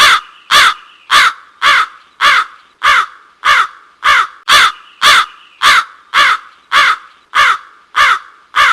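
A crow cawing, about sixteen short harsh caws in an even series, a little under two a second, ending just before the end.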